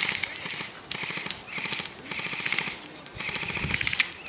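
Airsoft electric guns firing full-auto in several short bursts of rapid clicking, about four bursts with brief gaps between them.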